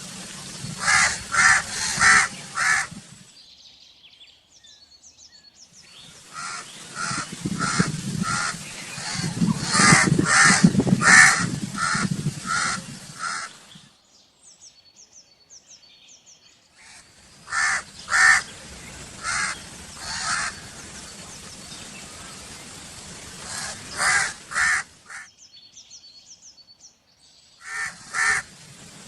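Crows cawing: runs of short, harsh caws repeated in quick series, with a few seconds' pause between runs. Faint high chirps can be heard in the pauses.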